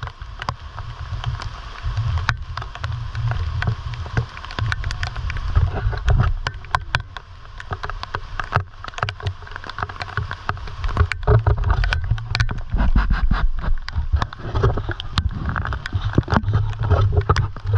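River water rushing and splashing, with many sharp knocks and a low rumble of handling or wind on the microphone.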